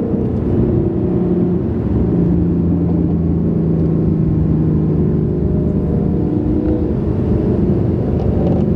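2019 Mustang GT's 5.0 Coyote V8 heard from inside the cabin, running steadily in third gear off the throttle as the car slows, its exhaust burbling on the overrun.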